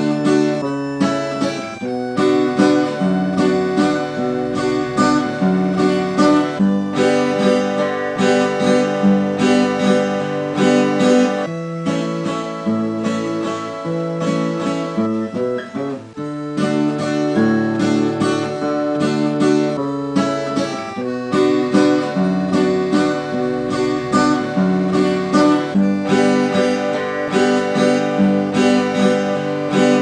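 Instrumental music of layered acoustic guitars strumming and picking chords over sustained piano accordion chords. The texture thins and dips briefly about halfway through.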